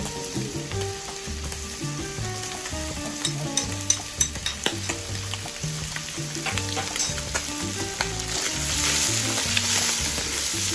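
Cuttlefish and ray pieces with freshly added minced garlic and parsley sizzling in hot oil in a wide enamelled steel paella pan. A spatula stirs them, with a few sharp scrapes and knocks a few seconds in. The sizzle grows louder near the end as the food is turned.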